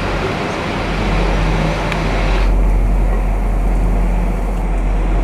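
Electric arc welding: a steady hiss from the arc over a low mains hum from the welding machine. The upper hiss drops away suddenly about two and a half seconds in.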